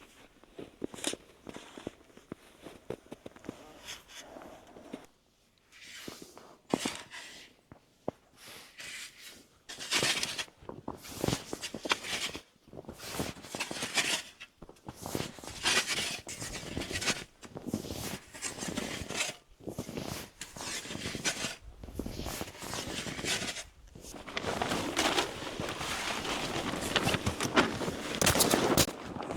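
Footsteps and movement crunching in snow, in irregular bursts that grow busier and louder in the last few seconds.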